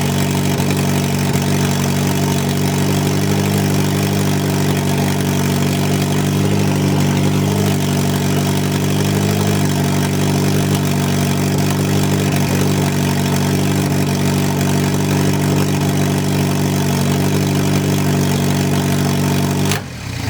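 Turbocharged Mazda Miata inline-four engine idling steadily on its first start after the turbo install. The sound cuts off suddenly near the end.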